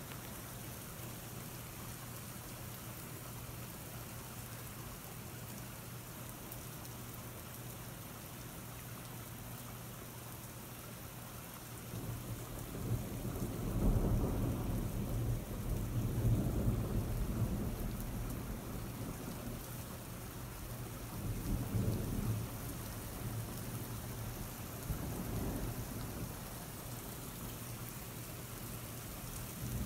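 Steady rain falling in a thunderstorm. About twelve seconds in, a long roll of thunder builds, peaks, and rumbles on in several swells for some fifteen seconds before fading back under the rain.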